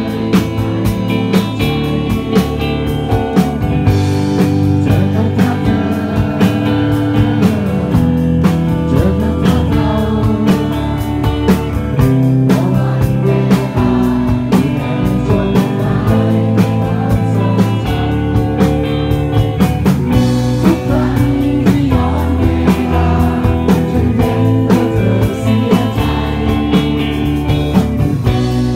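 Live rock band playing: electric guitar, bass guitar and drums, with a man singing over them.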